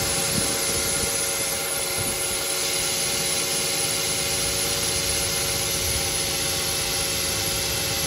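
Audi car engine idling with its serpentine (Poly-V) drive belt squealing steadily. The pulleys are aligned and the belt runs true, so the squeal does not come from misalignment or wobble.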